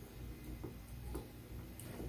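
A few faint, light clicks of small plastic parts being handled as the cover is fitted onto an in-line cord switch, over a low steady hum.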